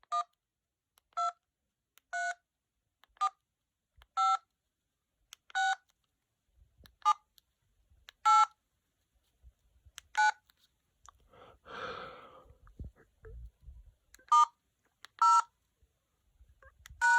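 Keypad tones from a Jitterbug flip phone: short two-tone dialing beeps as number keys are pressed, about one a second, a dozen in all, with a pause and a brief noise about twelve seconds in. The beeps are really loud, played through the phone's earpiece with the speakerphone off.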